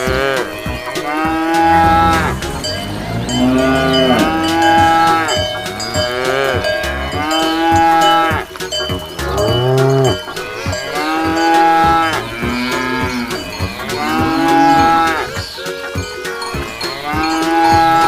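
Cows mooing over and over, one long drawn-out moo after another about every two seconds, several voices overlapping, with steady bell-like ringing behind them.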